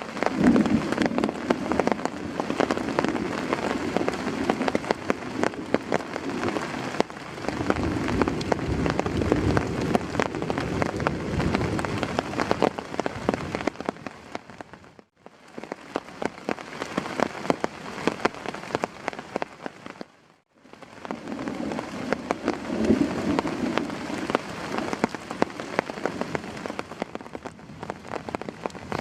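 Heavy rain falling, with many close drop impacts ticking through the steady wash. It fades out and back in twice near the middle.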